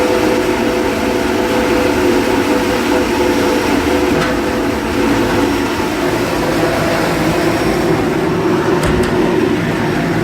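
Realmeca CNC machine running steadily during a test run: a continuous mechanical hum with several steady tones, and a brief click near the end.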